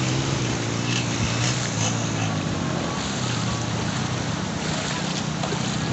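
Steady rush of wind and shallow sea water, with the low drone of an engine running underneath.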